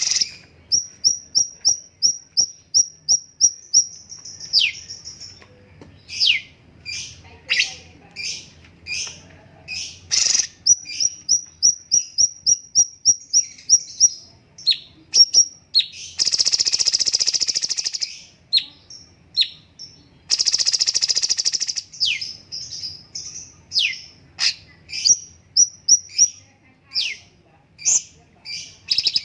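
Cucak cungkok singing in a rapid stream of sharp, high chirps and down-slurred whistles, opening with a fast trill of about ten notes a second. Twice in the middle it gives a harsh, buzzing rattle about two seconds long.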